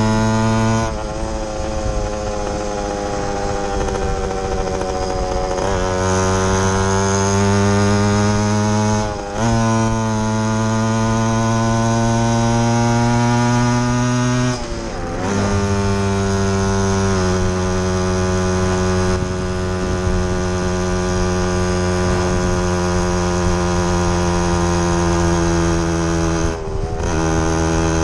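Yamaha YG5T Trailmaster's small two-stroke single-cylinder engine running under way. Its pitch climbs and then steps down several times, with brief dips about a third of the way in, about halfway and near the end, as gears are shifted.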